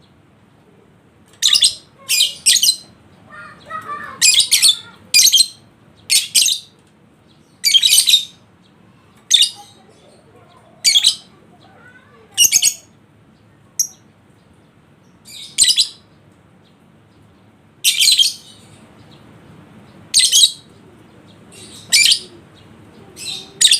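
Lovebird giving short, shrill, high-pitched chirping bursts, each under half a second, repeated irregularly every second or two.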